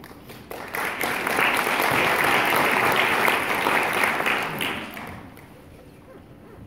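Audience applauding. The clapping swells about half a second in, holds for about four seconds and dies away.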